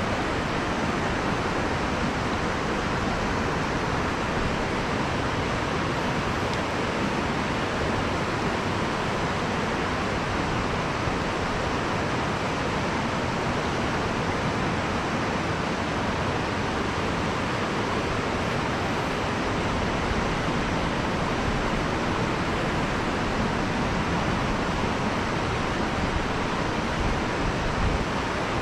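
Steady rush of river water flowing, an even, unchanging noise.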